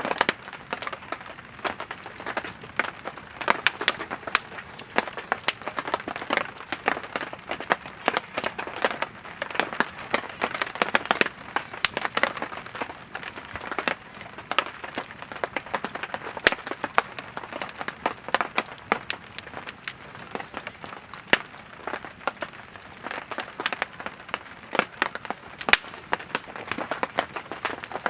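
Firewood burning in a campfire, crackling and popping continuously with frequent sharp snaps over a soft hiss of flames.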